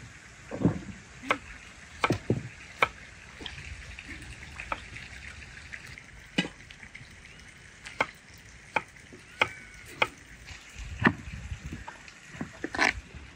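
Food being prepared with kitchen utensils: sharp knocks and clinks at an irregular pace, about one a second, over a faint steady hiss.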